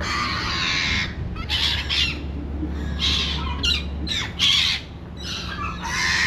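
Gulls crying: a rapid series of about seven harsh, screeching calls, with a low steady hum underneath that stops about four seconds in.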